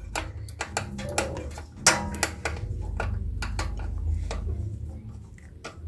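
Screwdriver working a Phillips screw on the metal cover of an industrial sewing machine's clutch motor: scattered sharp metallic clicks and light scrapes, the strongest about two seconds in, over a low steady hum.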